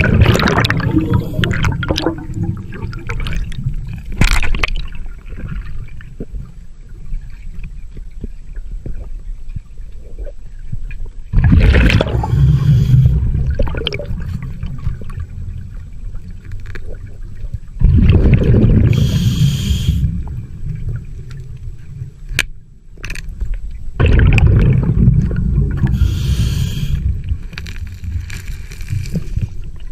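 Underwater sound of a scuba diver breathing through a regulator: a steady low rumble of water, with loud bubbling surges of exhaled air about every six seconds, each lasting a couple of seconds.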